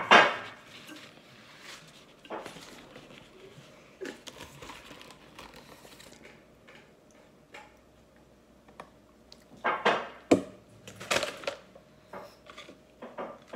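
Scattered knocks, clatters and rustles of takeout food containers, cups and plastic forks handled on a table during a meal. The loudest knocks come right at the start and again around ten to eleven seconds in.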